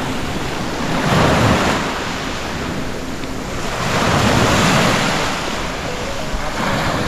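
Sea waves breaking on the shore, swelling about a second in and again around four to five seconds, with wind buffeting the microphone.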